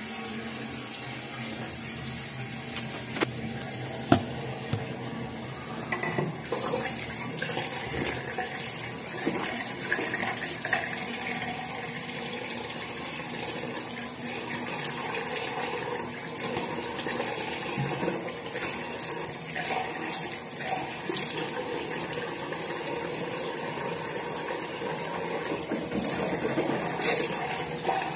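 Water running steadily, a continuous rushing hiss, with a couple of sharp knocks about three and four seconds in.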